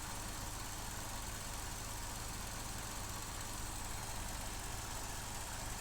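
Vauxhall Corsa E's 1.4 Ecotec four-cylinder petrol engine idling steadily. It has a misfire and is running lean, which the mechanics put down to either a faulty MAF sensor or an air leak.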